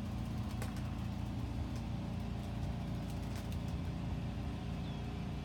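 A steady low mechanical hum, like an engine or motor running at a constant speed, with a few faint clicks over it.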